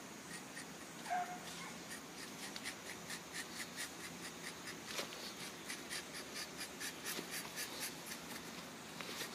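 Hornbill rubber tapping knife shaving bark along the tapping cut of a rubber tree: a faint, steady run of short scraping strokes, several a second.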